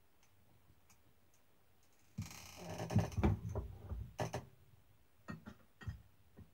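Leather strap of a replica championship belt being picked up and handled: a sudden rustling scrape with a few soft thumps about two seconds in, then a run of small clicks as a metal side plate is worked against it.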